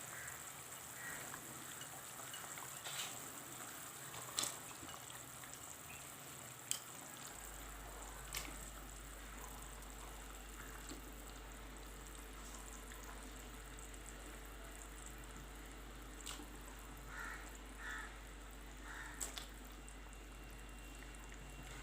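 Kingfish curry simmering faintly in the pan, with a handful of short, sharp clicks as kingfish pieces are put into the boiling masala one by one.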